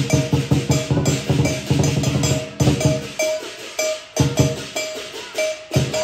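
Lion dance percussion: a big drum with clashing cymbals and gong, beating a fast, even rhythm. About halfway through, the drum drops to a few heavy strokes while the cymbals keep the beat.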